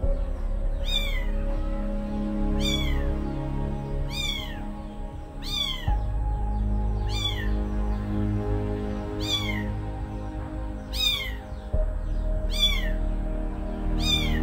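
Kitten mewing over and over, one short high-pitched mew falling in pitch about every second, over background music.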